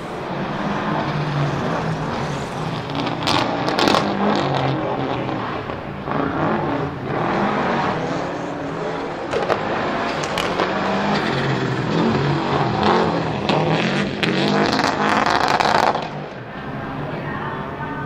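Subaru Legacy RS Group A rally car's turbocharged 2.0-litre flat-four boxer engine driven hard, revving up and down repeatedly. Sharp cracks ring out several times, and the engine gets quieter near the end.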